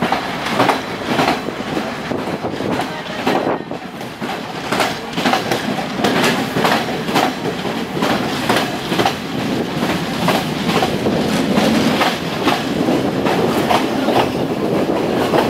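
Passenger train carriage running on jointed track: the wheels click over the rail joints in a steady clickety-clack, heard from the open doorway of the moving train.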